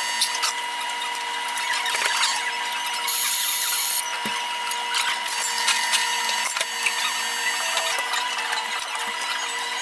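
Ice cubes scooped with a metal scoop and dropped into plastic cups, clinking over the steady hum of café machinery, with a brief hiss about three seconds in.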